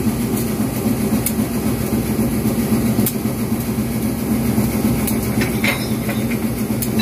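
Diesel locomotive engine running close by, a loud steady drone with a strong low hum, with a few faint clicks over it.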